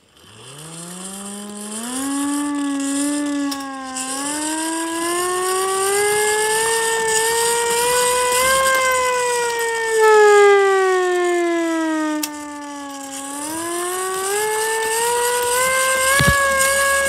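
Hand-crank single-tone air raid siren being cranked: its wail starts low and rises quickly, climbs slowly to a peak about eight seconds in, sinks as the cranking slows, then rises again near the end.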